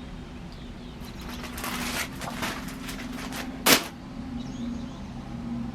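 Merchandise packaging being opened by hand: a couple of seconds of rustling and scraping, then one sharp, loud crack a little past the middle, over a faint steady hum.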